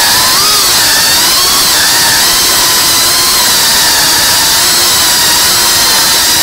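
Whoop FPV drone's tiny brushless motors and ducted propellers whining loudly in flight, the pitch wavering up and down with the throttle.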